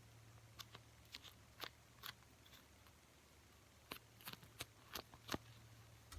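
Faint, irregular clicks and crinkles of small objects being handled, about a dozen in all and busiest in the second half, over a steady low hum.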